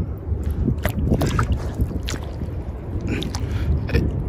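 Steady wind noise on the microphone, with a few small splashes and trickles as a hand moves through shallow seawater.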